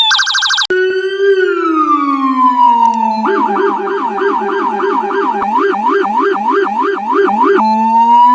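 Electronic police siren sound effect in altered variations: a brief high, fast warble, then a slow falling wail, then a rapid yelp of about four cycles a second for several seconds, switching back to a slow rising wail near the end.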